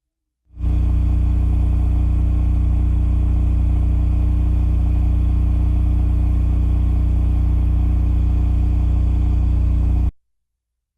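Cummins RS-20A home standby generator running steadily under load at 3,600 RPM: a constant low engine drone with a stack of even overtones. It fades in about half a second in and cuts off abruptly about a second before the end.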